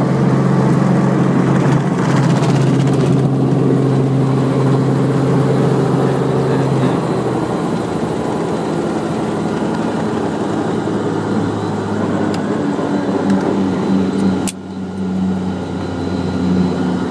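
Helicopter running, a loud steady drone with held low tones whose pitch steps lower about seven seconds in. Near the end there is a sharp click, and the sound drops for a moment.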